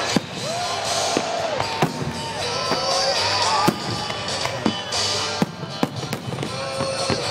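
Aerial fireworks bursting in a string of sharp bangs, roughly one or two a second, over music with a sung or played melody.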